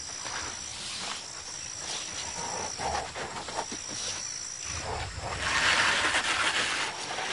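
Outdoor wildlife ambience: insects trilling in long, thin, high-pitched stretches that stop and start. From about five to seven seconds in there is a louder rushing, scuffling noise with a low rumble underneath.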